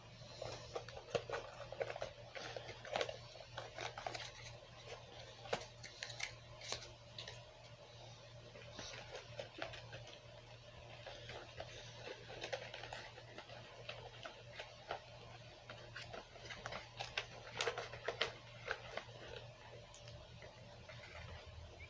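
Faint, scattered clicks, taps and rustles of hands unpacking an action figure and its accessories from cardboard and paper packaging, busiest in the first few seconds and again near the end.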